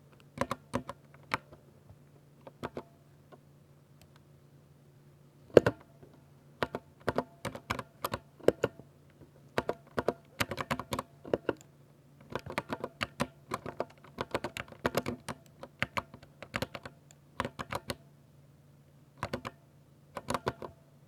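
Typing on a Ducky 60% mechanical keyboard with silver switches: clattering runs of keystrokes broken by short pauses, over a faint low hum. The loudest single stroke comes about five and a half seconds in.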